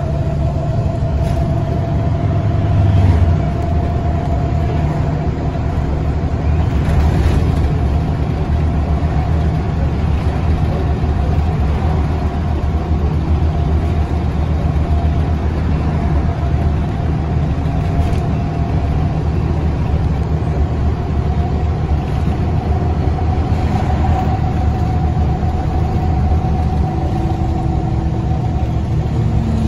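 Steady road noise of a moving car, heard from inside: a low rumble of engine and tyres with a faint steady whine over it.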